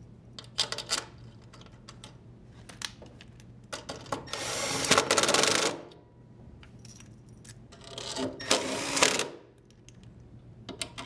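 Impact driver running twice, in bursts of about one and a half to two seconds, driving in the bolts that hold a washer's stator to the tub. Small metallic clicks and handling noises come before and between the bursts.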